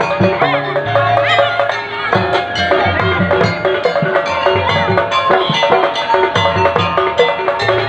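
Dance accompaniment music with steady percussion under melodic lines, played loud.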